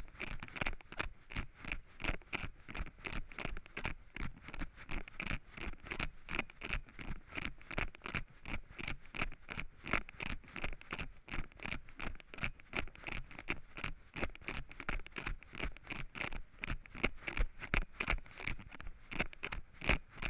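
Running footsteps crunching and rustling through dry fallen leaves on a forest trail, an even stride of about three steps a second.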